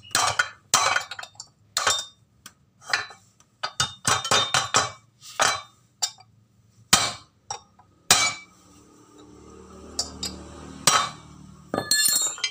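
Metal tool tapping and clinking against a Honda Beat motorcycle crankshaft assembly: a run of irregular sharp metallic knocks, some ringing briefly, with a quick cluster of clinks near the end.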